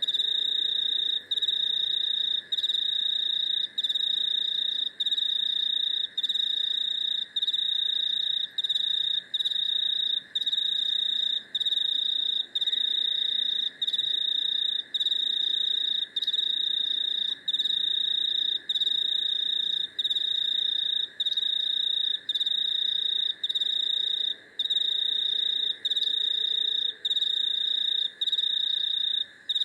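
A cricket trilling loud and steady at one high pitch, broken by a short pause about once a second, over a fainter steady insect drone lower down.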